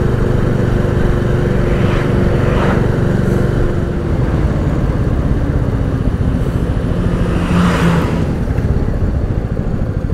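Royal Enfield Classic 350 single-cylinder engine running under way, with wind rush on the handlebar-mounted camera and two brief rushing swells about two and a half and eight seconds in. Near the end the bike slows and the engine's individual thumps come through distinctly.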